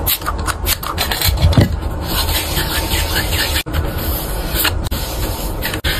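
A small pink spray bottle spritzed onto an open palm a few times in quick short puffs, then plastic photocard binder sleeves scraping and rubbing as cards are slid out of them.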